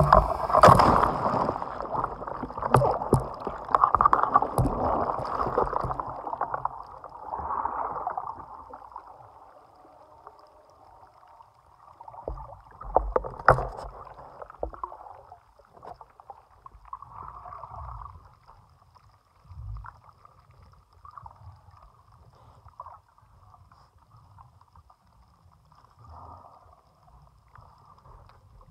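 Loud rushing air and wind noise as a diver drops from a helicopter into the sea, dying away within the first ten seconds. After that comes the muffled sound of being underwater, with bubbles and low thumps that are loudest around 13 seconds in.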